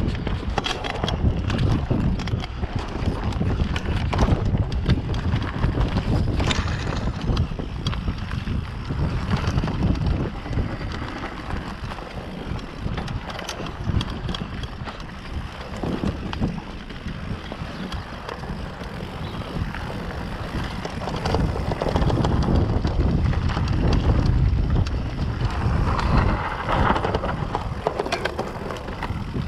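Wind buffeting the microphone of a camera on a moving mountain bike, over tyres rolling on a dirt trail and the bike rattling and knocking over bumps.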